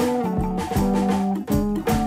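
Background music with sustained melodic notes over a steady beat.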